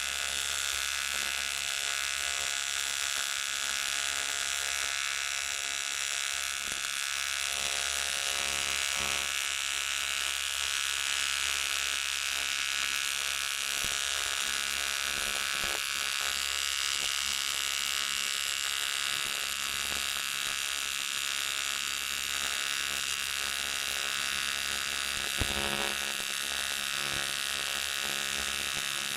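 AC TIG (argon-arc) welding arc buzzing steadily as it melts the cast aluminium of a broken steering-knuckle lug into a pool. A couple of faint clicks come near the end.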